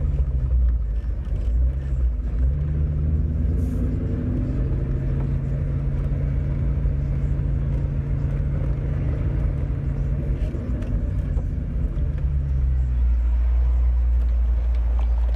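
2001 Ford Mustang with a newly fitted aftermarket exhaust running steadily while driving, a constant engine drone. About twelve seconds in, the note drops to a lower, deeper rumble as the engine settles toward idle.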